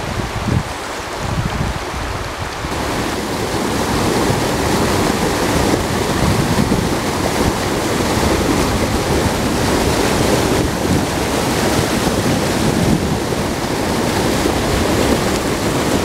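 Creek waterfall plunging into its pool: a steady rush of churning whitewater, growing louder about three seconds in.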